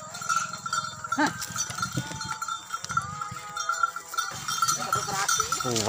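Bells on draft cattle pulling carts of oil palm fruit, ringing in a steady shimmering jingle over a low rumble, with a short gliding call about a second in.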